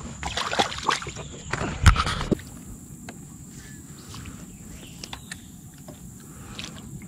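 A few sharp knocks and clattering handling noises on a small fishing boat, the loudest about two seconds in. These stop abruptly, and a quiet steady background follows with a thin high tone and a few faint ticks.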